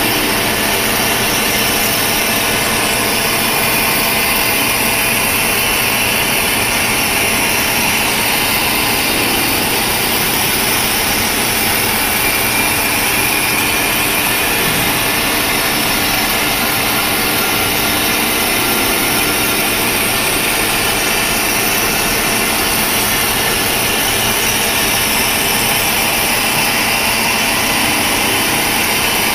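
CNC vertical milling machine cutting a steel block with an end mill, the spindle and cutter making a steady, unbroken machining noise.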